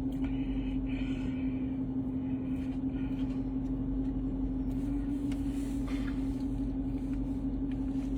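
Steady mechanical hum with one constant, unchanging tone and a low rumble underneath, like an idling motor or running machine.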